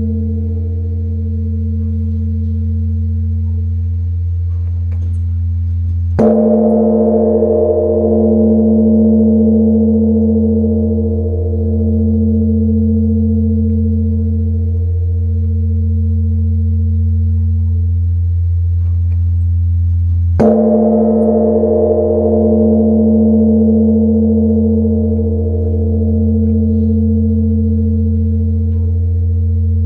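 Large bronze Korean Buddhist temple bell (beomjong) struck twice, about 14 seconds apart, with a swung wooden log. Each strike is a dull thump that renews a long, deep ringing hum that swells and fades slowly, still ringing from an earlier strike at the start.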